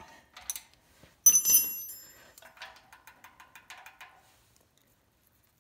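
Metal hand tools working on a small generator engine's valve rocker as the lock nut is tightened: a light click, then a sharp metallic clank that rings briefly, followed by a run of faint, quick clicks.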